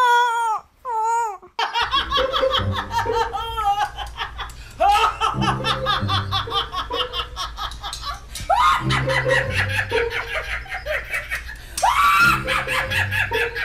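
A woman laughing hard in long belly laughs, breaking into rising shrieks about 5, 9 and 12 seconds in. Before the laughter, a person's brief wailing cry.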